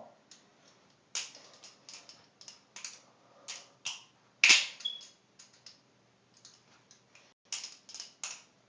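Benchmade Model 42 balisong being flipped: irregular clicks and clacks as the handles swing and strike the blade's tang and each other, with the loudest clack about four and a half seconds in and a quick run of clicks near the end.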